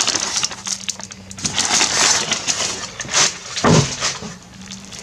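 Packing material in a shipping box crinkling and crunching as it is handled and pulled out, a dense run of crackles.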